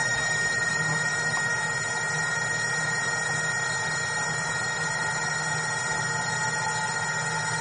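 Yamaha Seawing underwater scooter's electric motor and propellers running steadily underwater, heard through the camera housing as a constant whine of several fixed tones over a rushing hiss.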